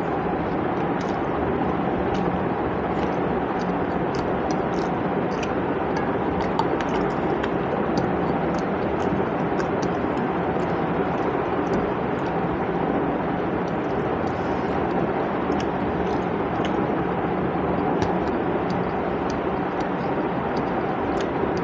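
Hand-eating sounds: fingers mixing rice and curry on a plate, chewing and mouth smacks, heard as many faint small clicks over a steady, even background noise.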